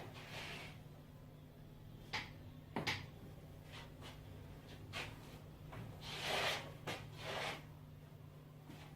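Neck joints popping during a manual neck crack: a sharp click about two seconds in and a louder double pop near three seconds, with fainter clicks later. Short hissing noises come between the pops over a steady low hum.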